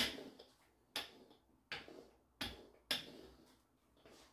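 Rolling pin working yeast dough on a silicone mat: five short knocks with the strokes, about half a second to a second apart, each fading quickly.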